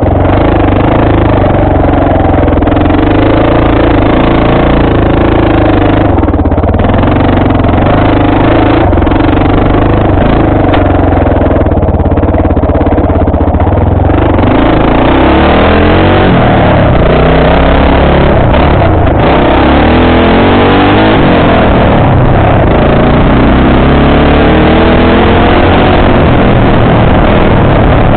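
ATV engine running loud and continuously under way on a dirt trail. Its pitch is fairly steady at first, then rises and falls repeatedly through the second half as the throttle is worked.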